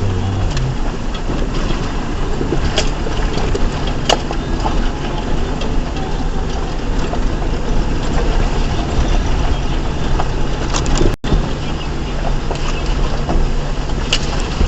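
A 2004 Ford Ranger's 4.0-litre V6 running at low speed on a rough trail, with the tyres working over the ground. A few scattered sharp knocks come through, and the sound cuts out for an instant about eleven seconds in.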